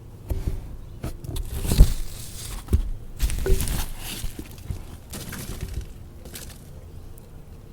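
Rustling and knocking handling noise from a field recorder being moved in close over worm-bin bedding, in irregular bursts that are loudest about two seconds in and again between three and four seconds.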